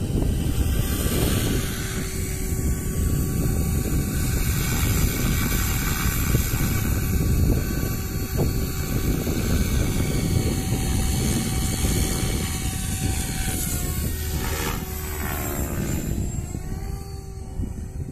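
SAB Goblin Kraken 580 electric RC helicopter in flight: a steady whine from its motor and rotor blades, whose pitch dips and rises again near the end. Heavy wind noise on the microphone runs underneath.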